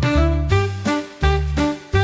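Upbeat instrumental music with a bouncy bass line under a melody of short notes, with no singing.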